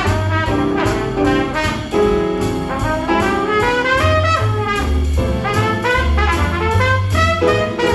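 Jazz big band playing swing: a trumpet solo carries the melody over the band, with the bass line and drums of the rhythm section keeping a steady beat beneath.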